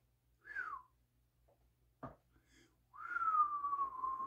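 A man whistling through pursed lips: a short whistle falling in pitch, a brief click, then a long whistle that slides slowly downward. It is a weak whistle that, by his own account, is not whistled properly.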